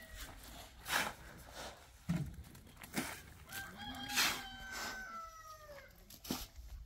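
One long animal call, about two seconds long, starting some three and a half seconds in; it holds its pitch and then falls at the end. Several sharp knocks come roughly once a second, the loudest one in the middle of the call.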